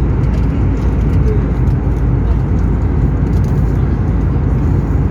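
Steady drone of an airliner cabin in flight: engine and airflow noise heard from inside the cabin.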